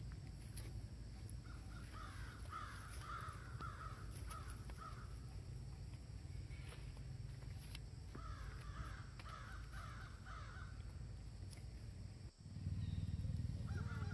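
Two runs of short, repeated harsh animal calls a few seconds apart, over a steady low rumble that jumps louder near the end.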